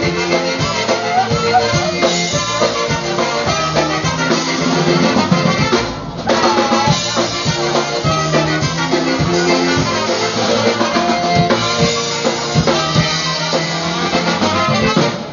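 Live polka band playing a polka, with trumpets over a steady drum-kit beat and bass. The music briefly drops away about six seconds in, then picks up again.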